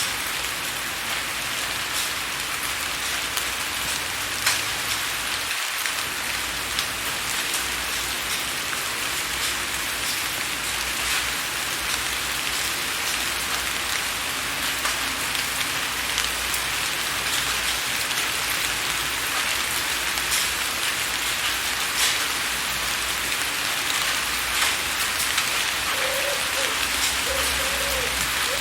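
Steady rain falling on a window pane: an even hiss with individual drops tapping throughout.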